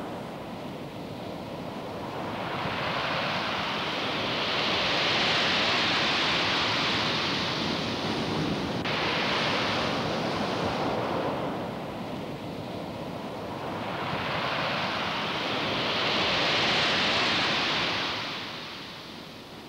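Rough sea surf crashing against and over a concrete groyne, in two long swells of breaking waves, the second fading away near the end.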